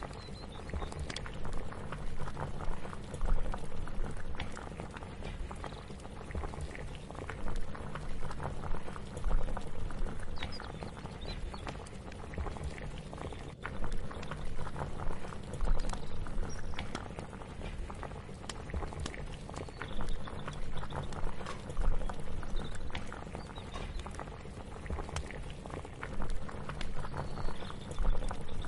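Kitchen ambience of a pot of liquid bubbling and simmering, thick with small pops and crackles. It swells and eases every couple of seconds over a low steady hum.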